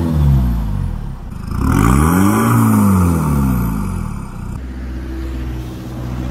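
Peugeot 206 2.0 HDi four-cylinder turbodiesel revved at a standstill through its exhaust-valve system. A rev with the valve closed dies away, and about a second and a half in comes a brighter rev with the valve open, its pitch rising and falling. From about four and a half seconds in, the car accelerates along the road with the valve closed, a steadier engine note that slowly climbs.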